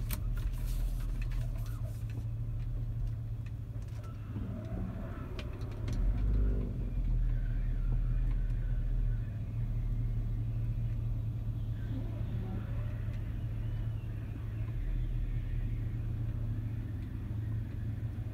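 Chevy Tahoe's V8 engine running low and steady, heard from inside the cabin as the SUV rolls slowly forward. It grows louder for a few seconds near the middle.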